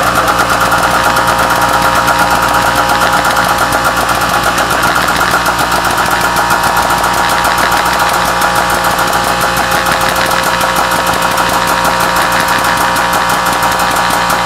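2212-6 2200KV brushless outrunner motor driven by a 30 A ESC, running loud and steady with a fast rattling pulse while the hydraulic press ram squeezes it.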